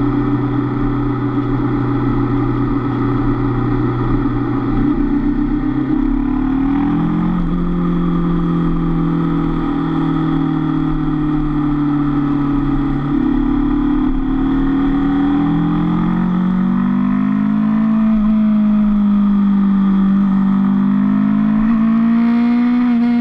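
Honda CB500F's parallel-twin engine running under way. Its pitch steps up about five to seven seconds in, drops at about thirteen seconds, and climbs again around seventeen seconds as the rider changes speed and gear.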